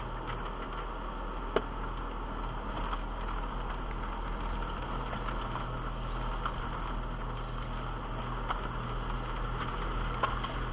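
Jeep Wrangler running at low speed over a rough dirt trail and onto grass, heard from inside the cab as a steady low hum and rumble. Now and then a sharp knock or rattle sounds from the body bumping over the ground.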